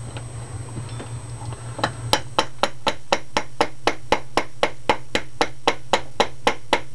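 Hammer tapping a punch to drive the bolt catch pin into an aluminium AR-15 lower receiver. About two seconds in, steady light strikes begin, about four a second, over a low hum.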